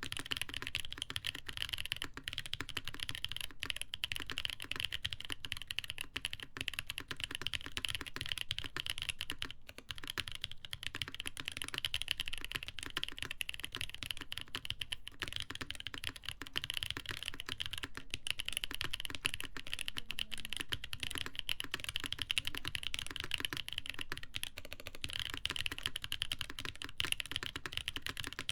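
Continuous fast typing on a mechanical keyboard with lubed Boba U4T tactile switches in a polycarbonate plate with foam, giving dense muted clacks, with a brief pause about ten seconds in.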